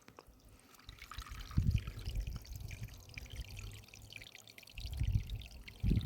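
Water pouring and dripping, with irregular low thumps.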